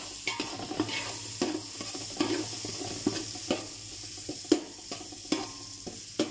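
Minced garlic and ginger sizzling in hot oil in a large aluminium pot, with a spatula scraping the pot's bottom in repeated stirring strokes, about two a second.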